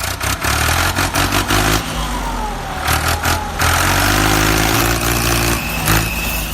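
Truck engine running and revving, with rattling clicks over the steady low drone; it cuts off abruptly just after the end.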